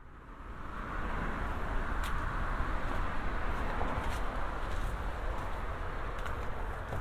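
Steady outdoor hum of distant road traffic, fading in over the first second, with a low rumble underneath. A few faint footsteps on concrete stair treads tick over it.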